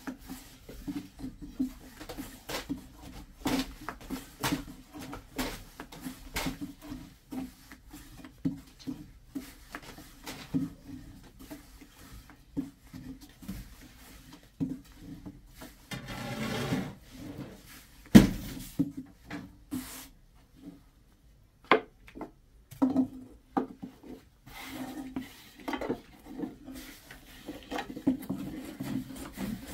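A run of irregular taps, knocks and scrapes from handling cookware and wooden utensils, with one louder knock about eighteen seconds in.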